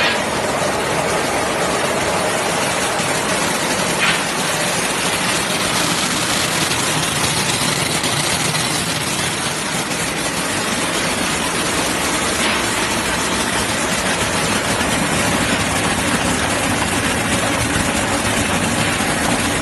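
Coffee cherry color sorting machine running with cherries streaming through it: a steady mechanical noise, with a brief click about four seconds in and again around twelve seconds.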